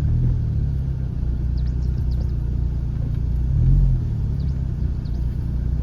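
Car engine running at low speed with a steady low rumble, the revs rising briefly about three and a half seconds in as the car crawls over a rocky dirt track.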